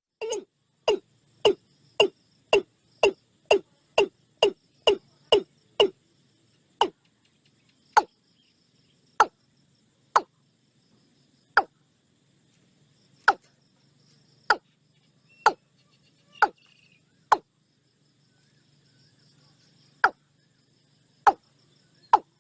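A series of short, hollow plopping knocks that drop in pitch, about two a second at first, then slowing to irregular single plops a second or more apart, with a pause of a few seconds near the end. Faint steady high tones sit underneath.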